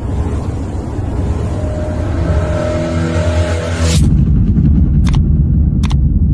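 Subscribe-animation sound effects: a rumbling swell that builds to a sudden hit about four seconds in, then a deep rumble with two short clicks as the subscribe button is pressed.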